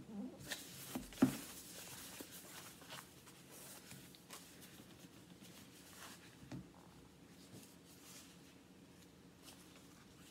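Fingers and a paper wipe rubbing and pressing on a phone's plastic screen protector, with soft clicks and taps; the loudest tap comes about a second in, then scattered light ticks.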